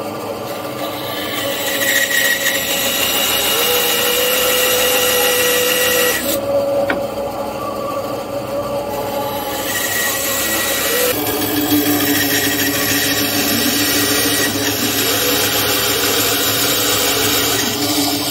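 Benchtop band saw running and cutting through birch plywood: a steady motor hum under the rasp of the blade in the wood. It gets louder while the blade is biting in, with a lull midway.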